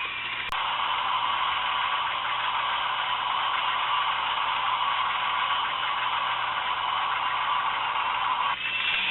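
Vintage K'Nex roller coaster's motorised chain lift running: a steady mechanical whir with a light clatter. It comes in with a click about half a second in and stops abruptly near the end.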